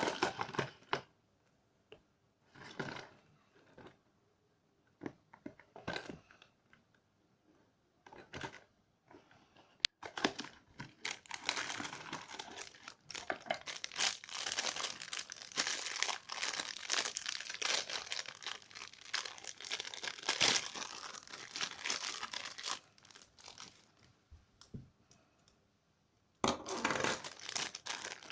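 Packaging of a random layer toy pack being crinkled and torn open by hand: short scattered rustles at first, then a single sharp click, then a long stretch of steady crinkling and tearing that eases off and picks up again near the end.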